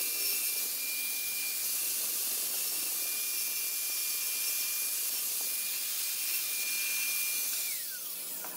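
Angle grinder cutting through a ceramic tile: a steady high whine over gritty cutting noise. Near the end it is switched off and the whine falls away as the disc spins down.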